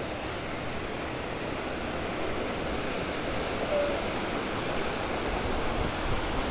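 Mountain stream rushing over rocks in small cascades: a steady, even rush of water.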